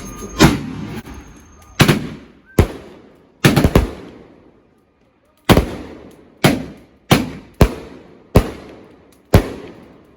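Fireworks going off: about a dozen sharp, loud bangs at irregular intervals, including a quick run of three about three and a half seconds in, each bang trailing off in an echo.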